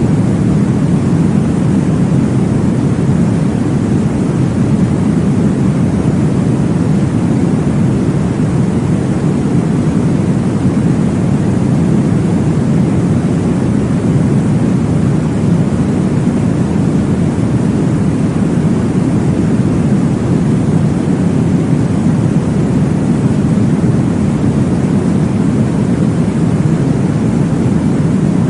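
Steady, deep whooshing noise of a baby-sleep womb-sound track, strongest in the low range, with no pulses or changes.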